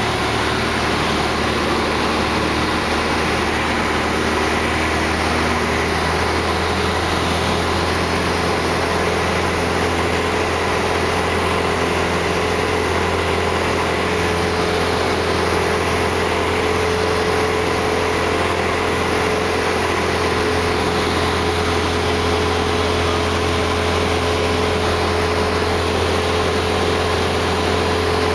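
Steady, unchanging drone of a high-wing light aircraft's piston engine and propeller in cruise, heard from inside the cabin over a constant rush of air.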